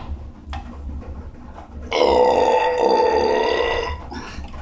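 A man's long beer belch, about two seconds long, starting about two seconds in and held on a fairly steady pitch.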